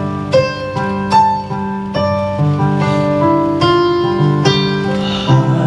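Piano playing slow, sustained chords over a held bass line, with a new note struck every half second or so: an instrumental passage in worship music.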